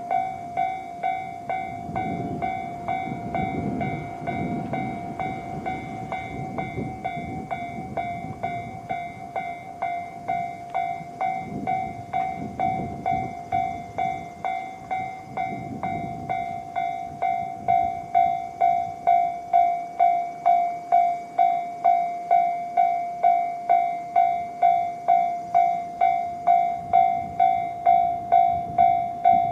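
Japanese level-crossing warning bell, the electronic JR-standard sound, ringing steadily just under two strokes a second and louder from a little past halfway. Low rumbles of passing vehicles come and go beneath it.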